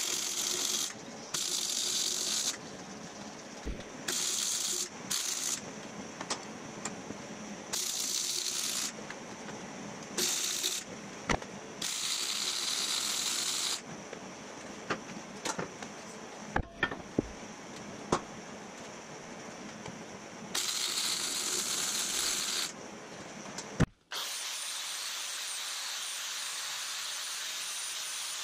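Arc welding steel bat-wing brackets onto a tube front axle: repeated crackling bursts of half a second to two seconds each, with short gaps between them. About four seconds before the end, the sound changes suddenly to a steady hiss as an angle grinder with a flap disc runs.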